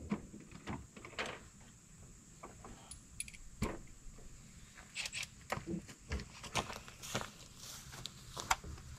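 Scattered metallic clinks and knocks of hand tools being handled, irregular and spread throughout, with no power tool running.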